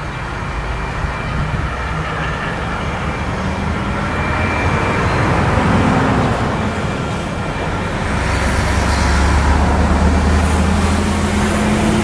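A freight train of coal wagons rolling past on the rails, a steady rumble that grows louder from about eight seconds in, with a higher hiss from the wheels and low steady engine tones.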